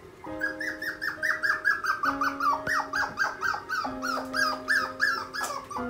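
Yorkshire terrier puppy crying in the night: a rapid string of short, high, falling whimpering yips, about three or four a second, over soft background music.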